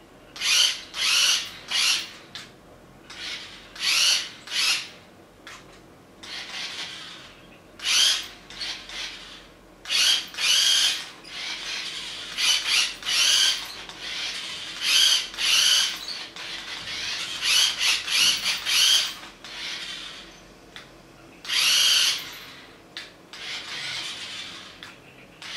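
Small electric motor and plastic gearbox of a toy remote-control vehicle, whirring in short, irregular bursts as it is driven start-stop.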